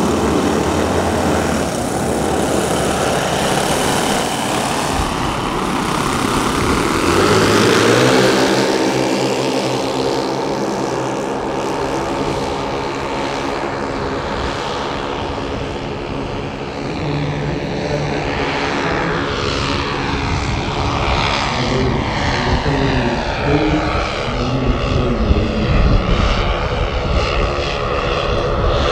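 The twelve 10 cc OS glow-plug model engines of a large scale Dornier Do X flying boat model running together at high power, a dense multi-engine propeller drone. From about eight seconds in it settles into many steady tones at slightly different pitches, and around twenty seconds in the pitches shift and cross.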